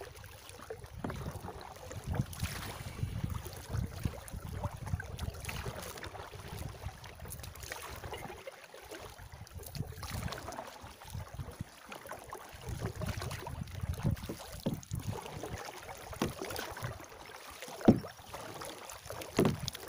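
Kayak paddle strokes: a double-bladed paddle dipping and splashing in the river as a tandem kayak is paddled along, with wind buffeting the microphone. Two sharp knocks stand out near the end.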